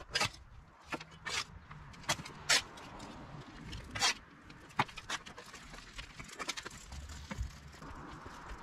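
Garden hand tools scraping and rustling in irregular short strokes, about one or two a second.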